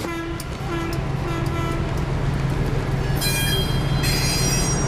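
Train pulling into a station: a steady low rumble, with a few short tones in the first two seconds and high-pitched squealing from about three seconds in.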